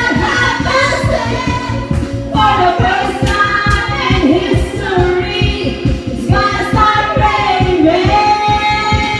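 Pop song with several voices singing over a steady beat.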